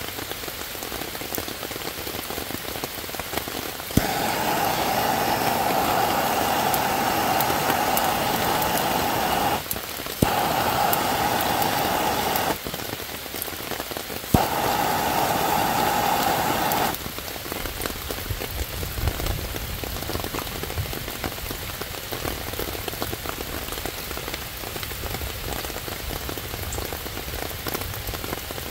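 Handheld Bernzomatic gas torch burning steadily as its flame is held on wet kindling. It comes on with a click about four seconds in, drops out and is relit with a click twice, and shuts off a little past the middle. Steady rain falls on the leaves and wet ground throughout.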